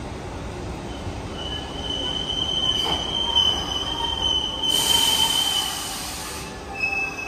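Train wheels squealing against the rails, a steady high squeal held for several seconds. A hiss comes in about five seconds in, and a second, shorter squeal follows near the end.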